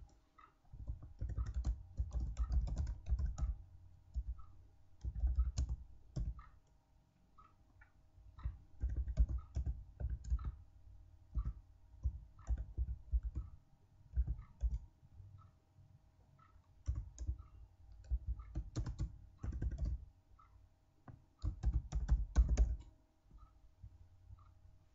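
Computer keyboard typing in bursts of a second or two, with short pauses between, keystrokes clicking with a dull thud. A faint steady hum lies underneath.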